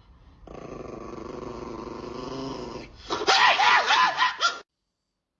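An animal vocalising: a low, steady growl-like sound for about two seconds, then a few loud wavering yowls that rise and fall in pitch, cutting off abruptly.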